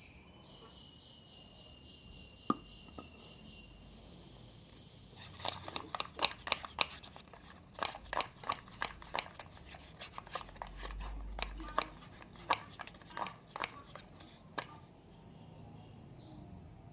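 Irregular sharp clicks and taps of a utensil knocking against a container as slime ingredients are stirred, going on for about nine seconds from about five seconds in. Before that, a high, steady whistling tone lasts about three seconds.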